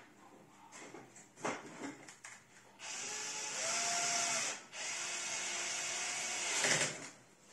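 Power drill driving screws into the oven's back panel: the motor runs for about two seconds, stops briefly, then runs again for about two seconds. A few light knocks and clicks come before it.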